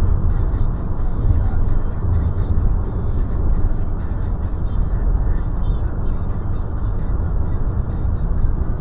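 Steady engine and tyre road noise heard inside the cabin of a moving car on an asphalt highway.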